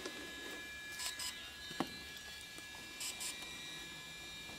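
DJI Phantom 3 Professional drone, powered up on the ground, giving pairs of short high beeps about every two seconds over a steady electronic hum and whine, while it is still looking for satellites. A single sharp click comes about two seconds in.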